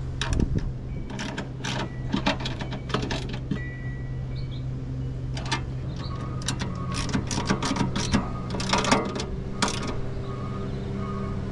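Small ratchet wrench clicking in short quick runs, stopping and starting, as bolts with nylon lock nuts are tightened down. A steady low hum sits underneath.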